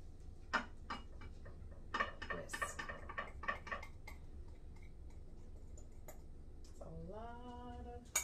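Light, quick ticks and taps of a utensil against a bowl while powdered sugar is sifted, with a dense flurry of them about two seconds in. A short hummed voice, rising in pitch, comes near the end.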